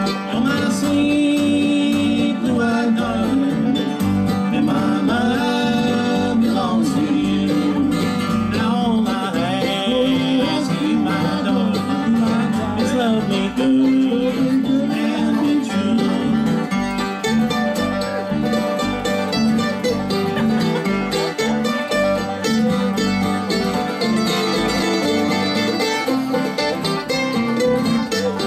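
Live bluegrass band playing an instrumental passage, with banjo, acoustic guitar and upright bass.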